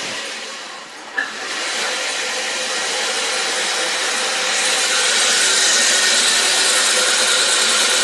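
Steady, loud hissing machine noise, as from a power tool or air jet working on pump parts, with a sharp click about a second in. It grows louder around four to five seconds in.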